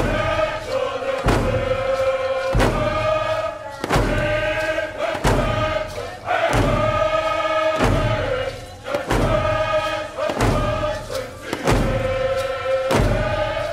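Chanted singing over a steady drumbeat, about one beat every 1.3 seconds.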